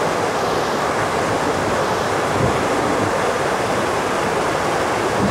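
Steady rush of flowing water from a spring-fed stream, an even noise with no pauses or changes.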